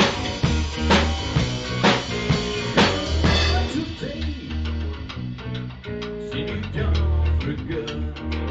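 Blues-rock band playing an instrumental passage on electric guitar, bass and drum kit. Heavy drum hits land about once a second at first, then after about four seconds the drums change to quick light ticks under the guitar.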